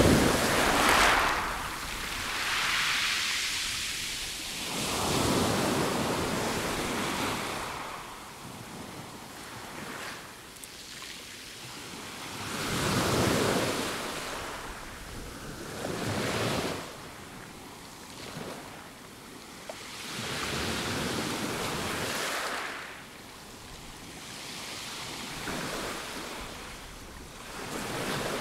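Small waves breaking and washing up a pebble beach, rising and falling in irregular surges of noise every few seconds.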